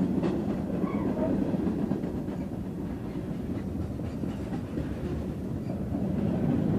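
Freight cars rolling past close by: a continuous rumble of steel wheels on the rails, with clickety-clack over the rail joints.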